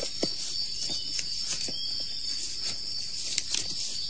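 A steady high chirring of crickets at night, with scattered faint clicks and ticks.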